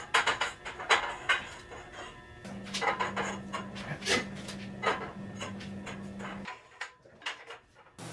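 Repeated sharp metal clanks and knocks of steel tubing and boards being handled on a roof rack frame, with a steady low hum through the middle of the stretch.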